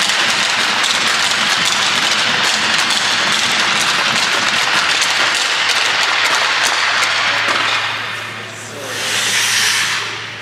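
Crowd applauding, many hand claps blending into a steady wash that dies away about eight seconds in. Near the end comes a brief hiss of ice skates scraping to a stop.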